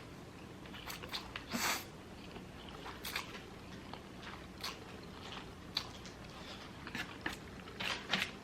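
Close-up eating sounds: biting and chewing, with a string of short mouth clicks and crunches, the loudest about a second and a half in.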